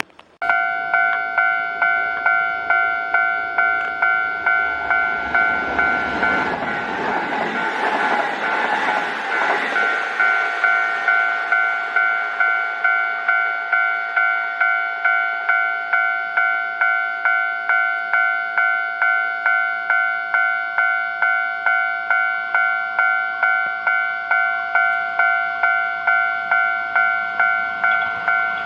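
Japanese railway level-crossing warning bell starting abruptly and then ringing on in an even rhythm of about three strikes every two seconds. A Kintetsu Osaka Line train rumbles through the crossing from about five to ten seconds in.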